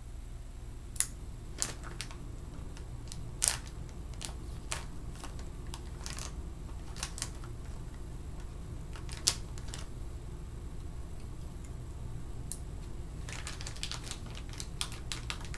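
Plastic parts packaging being handled: irregular sharp clicks and crinkles, about a dozen spread through, with a quick run of them near the end, over a steady low hum.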